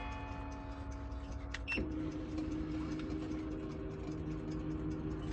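French carriage clock striking on its coiled gong. A bright ringing note struck just before is dying away, then about two seconds in a second, lower note is struck and rings on steadily. The platform escapement ticks faintly underneath.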